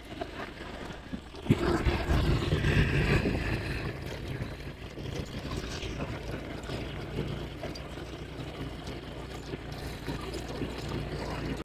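Wind buffeting the microphone, with a steady low rumble, louder for a couple of seconds starting about one and a half seconds in.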